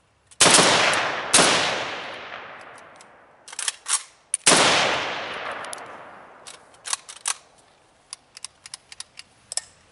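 Three shots from an AK-pattern rifle: two about a second apart, then a third some three seconds later, each with a long fading tail. Small clicks and rattles follow near the end.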